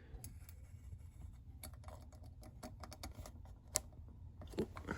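Scattered light clicks and taps of small hard objects being handled, with a sharper click a little before four seconds in and two more near the end.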